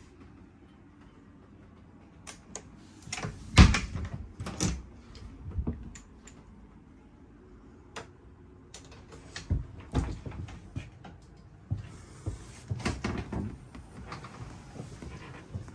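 Motorhome cupboard and wardrobe doors being opened and shut: a series of separate clicks and knocks, the loudest about three and a half seconds in, with more clustered near the end.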